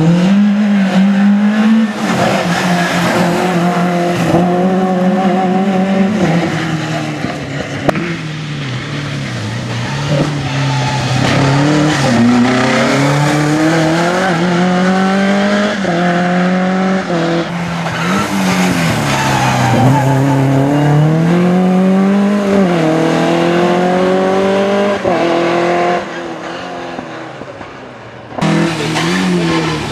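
Škoda Felicia rally car's engine revving hard through the gears: its note climbs, drops back at each shift and climbs again, over several passes. Near the end it is fainter for a couple of seconds, then loud again.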